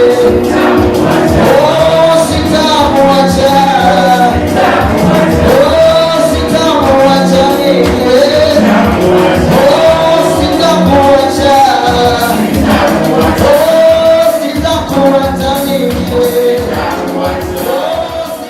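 Music with a singing voice over a steady beat, fading out near the end.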